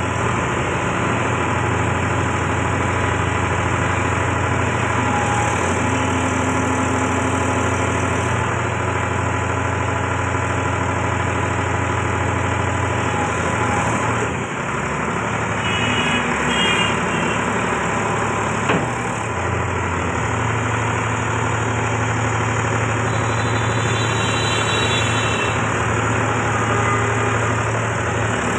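Mahindra 275 DI TU XP Plus tractor's three-cylinder diesel engine running steadily at idle, its note dipping and shifting for a few seconds in the middle, with a single sharp click near the end of that change.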